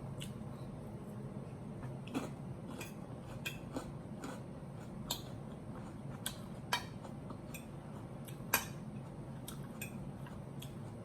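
Fork and knife clicking and scraping against a plate during a meal, in irregular light clicks about once or twice a second, over a steady low background hum.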